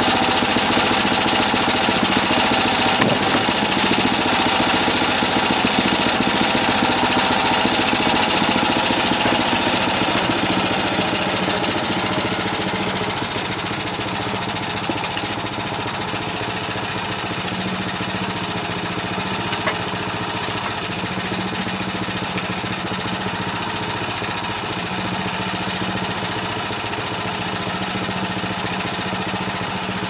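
Wood-Mizer LT10 bandsaw mill's small gasoline engine running steadily, loud for the first dozen seconds while the blade cuts through the log, then settling quieter with the cut finished. A few faint knocks come later.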